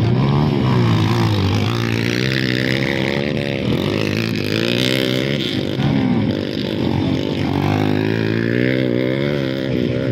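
Motocross motorcycle engines revving, their pitch rising and falling again and again.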